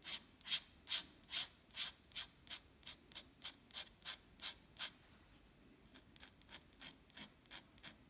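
Dip-pen nib scratching across drawing paper in a run of short hatching strokes, about two to three a second, softer in the second half.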